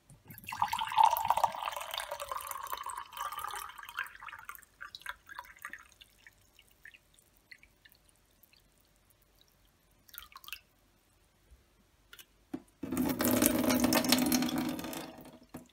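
Water poured from a metal can into a stemmed wine glass, splashing for about four seconds, its pitch rising a little as the glass fills, then dying away to a few faint drips. Near the end, water poured from the can into a stainless steel sink, drumming on the steel for about three seconds.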